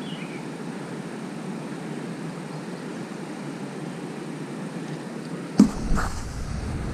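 Steady rush of water flowing down a lake spillway, with a single sharp knock about five and a half seconds in.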